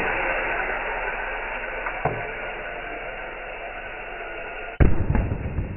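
Compressed air hissing from an air blow gun into a plastic water bottle held on its nozzle, starting suddenly and slowly easing off. Near the end comes a loud pop as the pressurised bottle lets go of the nozzle, followed by a rough rush of air and water spray.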